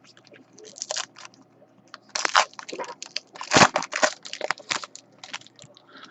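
Foil trading card pack wrappers being torn open and crinkled by hand, an irregular run of crackles that is loudest in the middle.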